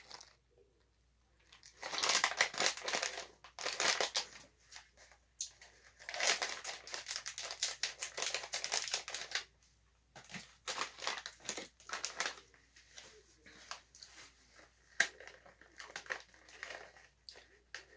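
Plastic snack bag crinkling as it is handled and pulled open, in irregular bursts of crackle with short pauses and a sharper crackle a little past the middle.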